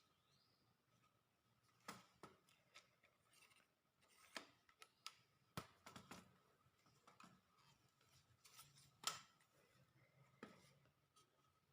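Faint, irregular clicks and light rustling as a tripod is handled, with a sharper click about nine seconds in.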